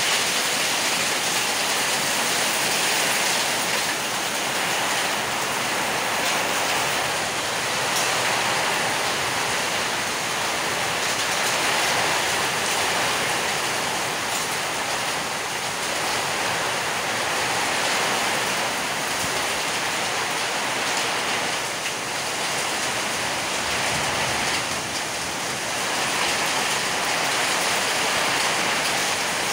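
Heavy rain mixed with small hailstones falling on wet stone paving, a steady dense hiss that swells and eases slightly.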